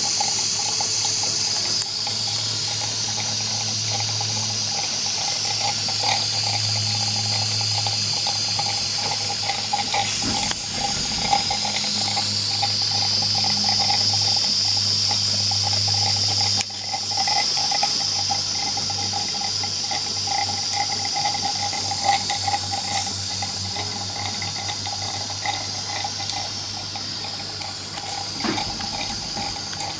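Cotswold Heritage Perseus model steam engine running steadily: a continuous hissing rush of steam with an even running tone underneath.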